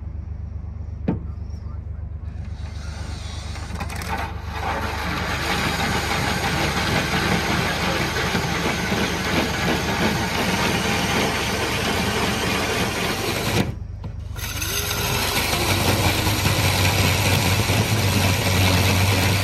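Power drill cutting the flue hole up through the narrowboat's steel roof, running steadily for several seconds. It stops briefly about two-thirds of the way through, then resumes with a deeper, steadier motor note.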